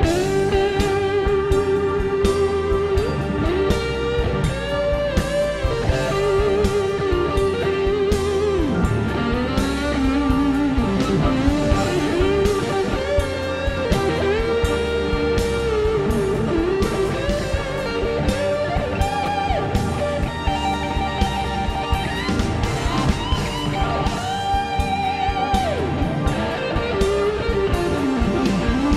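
Background music: electric guitar leading over a band with a steady beat, its notes bending in pitch.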